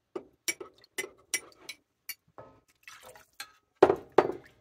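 Thickening slurry poured into a lemon pan sauce in a cast iron skillet and stirred in with a spoon: liquid splashing with a run of sharp clicks of the spoon against the pan, and two louder knocks near the end.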